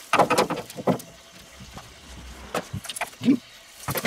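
Steel grill grate clanking and rattling as it is swung on its stand and set down over the charcoal, in a handful of sharp metal knocks.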